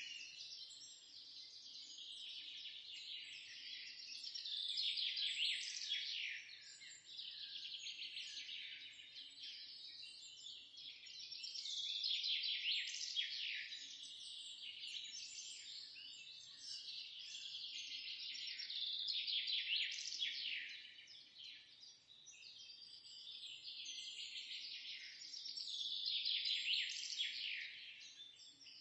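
Songbirds chirping and singing in a continuous high-pitched chorus, with louder song phrases returning about every seven seconds.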